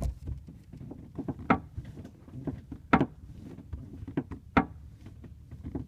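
Creaking from the rear right interior side trim of a 2003 Ford Mustang Mach 1 as it is pushed by hand: three sharp creaks about a second and a half apart, with fainter ones between. This is the creak the owner is tracing to that corner of the cabin.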